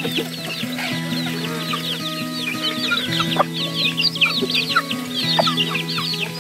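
A flock of chickens feeding, with many chicks peeping rapidly and continuously in high, quick chirps and hens clucking. Background music with long held notes runs underneath.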